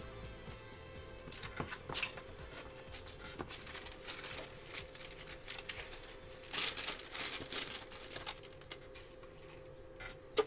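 Faux fur and foam rustling and scraping in irregular bursts as a fursuit head is handled and shifted on its head form, over faint background music.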